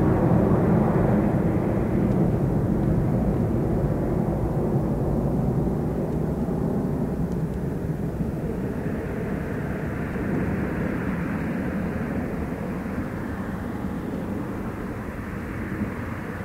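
Jet engine noise from a departing Boeing 767-200ER as it climbs away after takeoff. It is a steady rumble that slowly fades as the airliner gets farther off.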